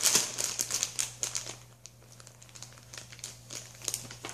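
Plastic bag of cake mix crinkling as it is lifted and handled, dense crackling during the first second and a half, then quieter scattered crackles.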